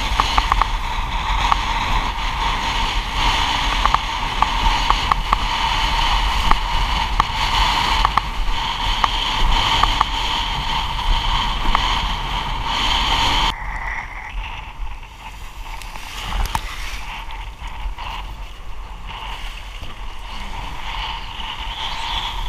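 Windsurf board planing through choppy water in strong wind, a steady rush of wind and water on a boom-mounted camera's microphone, with frequent sharp slaps from the chop. About two-thirds of the way through it drops suddenly to a quieter, duller rush.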